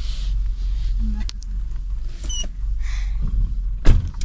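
Handling noise from a phone's microphone: a steady low rumble of rubbing and muffling, a few small clicks, and one sharp knock near the end.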